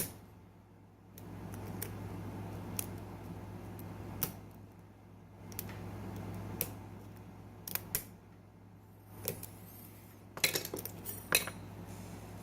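Lock pick and tension wrench working the pin stack of a pin-tumbler lock: scattered light metallic clicks and scrapes, thickest near the end, over a steady low hum.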